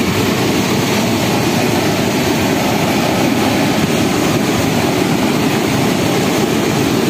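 Muddy floodwater pouring over the crest of a small concrete weir on a rain-swollen stream: a loud, steady, deep rush of water with a hiss above it. The stream is in spate, the water coming right up over the top of the weir.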